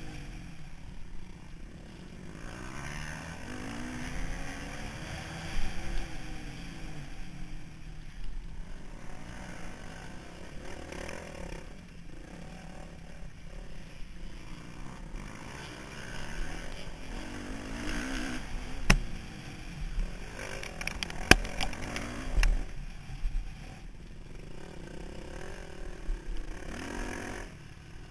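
Onboard sound of a motocross bike's engine revving up and falling back as it is ridden over a dirt track, with rough wind and chassis clatter on the camera mount. A few sharp knocks come about two-thirds of the way through.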